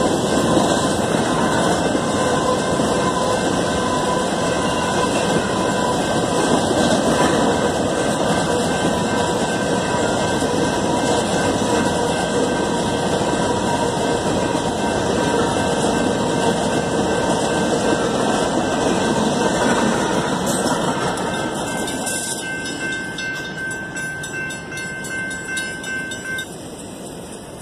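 Covered hopper cars of a BNSF grain train rolling through a grade crossing: a steady rumble and clatter of wheels on rail, with a thin steady whine over it. The noise fades away over the last several seconds as the end of the train passes.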